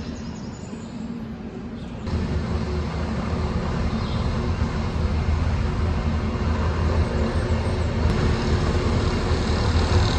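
Heavy dump truck engine running with a steady low hum. The hum jumps up about two seconds in, then grows slowly louder as the truck nears.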